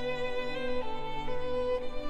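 Background instrumental music: slow sustained melodic notes, changing every half second or so, over a low held note.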